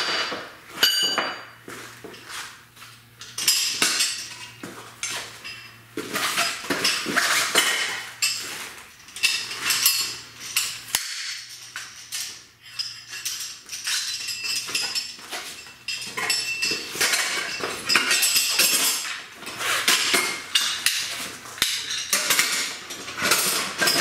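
Metal tubes and parts of a portable motorcycle tire changer clinking and clanking repeatedly as the stand is taken apart and the pieces are packed into its carry bag.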